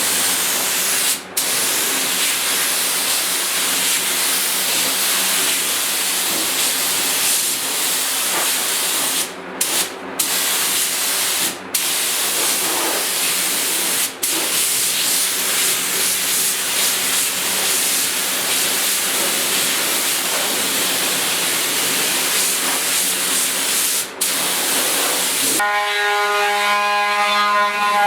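Compressed-air paint spray gun spraying primer: a steady loud hiss, broken by several brief stops as the trigger is let go. Near the end the hiss gives way to a steady pitched hum.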